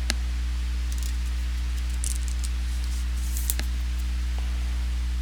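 A steady low electrical hum with a few short clicks and soft rustles of trading cards and packs being handled.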